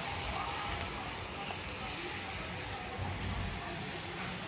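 Kadhi batter sizzling with a steady hiss as it is poured into a kadai of hot ghee-and-oil tempering.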